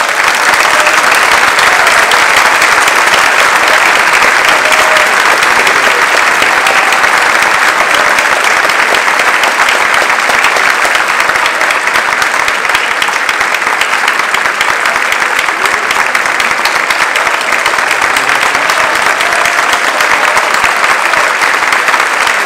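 Concert-hall audience applauding, loud and steady.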